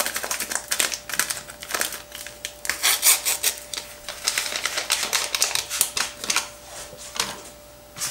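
A small paper baking powder packet rustling and being torn and tapped out, then a spatula stirring and scraping dry flour in a plastic bowl: a run of irregular small clicks, taps and rustles.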